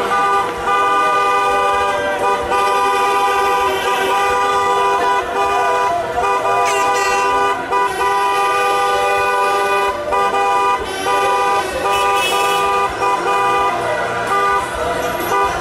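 Several car horns honking together, held blasts at different pitches overlapping almost without pause, with only brief breaks: celebratory honking in a victory car parade.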